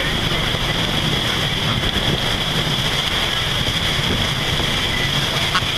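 Steady noise of storm wind and rough, breaking sea heard from aboard a boat under way, with wind buffeting the microphone.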